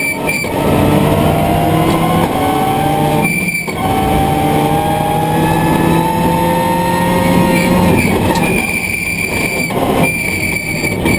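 Subaru Impreza WRC rally car's turbocharged flat-four engine at full throttle from inside the car, its pitch climbing steadily through each gear with brief breaks at the gear changes, near the start and about three and a half seconds in.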